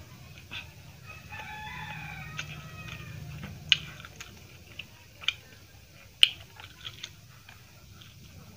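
A rooster crowing once, about a second in, lasting around two seconds and trailing off, followed by a few sharp mouth clicks and smacks of eating.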